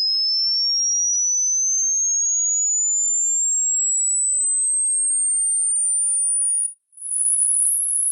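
A pure, very high-pitched hearing-test tone rising steadily in pitch: an age-hearing sweep that climbs towards pitches older ears can no longer hear. Near the end it cuts out for a moment, then comes back higher, louder and wavering.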